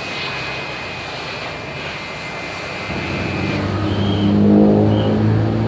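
A steady high-pitched whine that stops about two-thirds of the way in, while a low engine hum swells up and peaks near the end.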